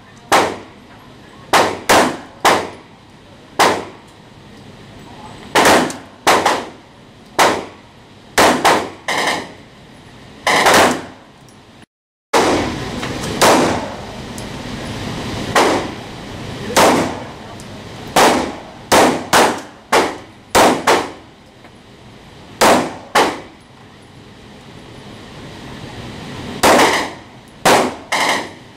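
Ruger LCP .380 pocket pistol fired repeatedly in an indoor range, each shot a sharp bang with a ringing echo, some in quick pairs. After a cut about twelve seconds in, a Ruger LC9 9mm pistol fires a string of shots in the same echoing space.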